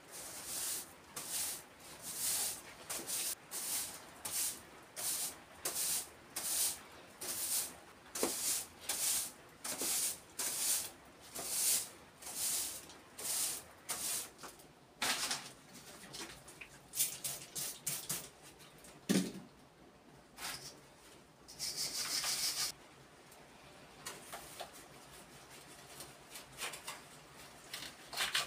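Broom sweeping a stone floor in brisk, scraping strokes, about one and a half a second, then slower, scattered strokes in the second half.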